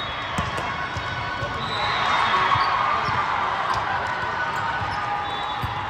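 Volleyball play in a gym: a few thumps of the ball over a steady hubbub of voices, with a few faint high squeaks.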